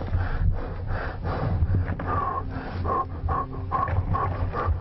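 A man breathing hard and fast in panic, sealed inside a buried box. From about halfway through, short high whimpers ride on the breaths.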